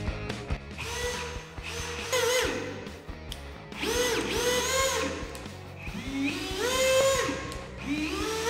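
Einhell TP-CD 18/60 Li BL brushless cordless drill running free in about five short trigger pulls: each time the whine climbs in pitch as the motor spins up, holds level, then drops away; one run climbs in steps as the trigger is eased in further.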